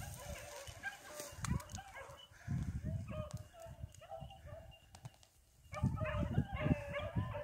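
Hunting dogs yipping and baying in many short, repeated calls as they run game, busiest at the start and again near the end after a brief lull. Low rustling thumps of footsteps through dry grass lie underneath.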